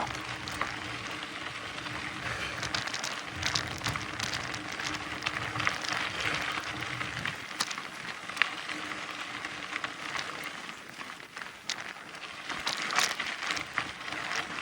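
Mountain bike tyres rolling and crunching over a dirt and gravel trail on a descent, with scattered small clicks and rattles. A low rumble sits under the first half and dies away about halfway through.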